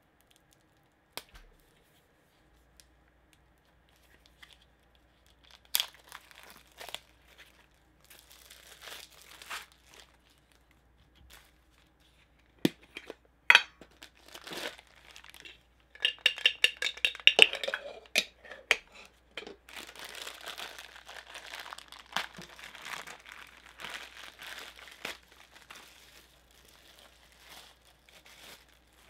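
A Funko Soda can and its contents being handled: a few sharp clicks of the can's metal lid and parts in the first half, then plastic bubble-wrap packaging crinkling and tearing as the figure is unwrapped.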